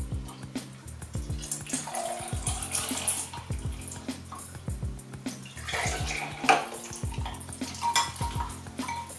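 Milk pouring from a plastic jug into tall glasses, a splashing stream heard about a second and a half in and again around six seconds, over background music with a steady beat.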